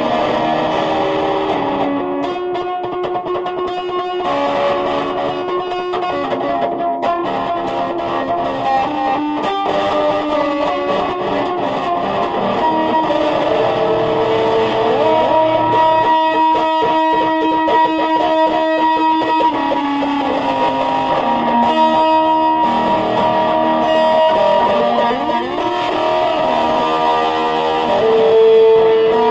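Music led by a distorted electric guitar, with long held notes and notes that slide up and down in pitch.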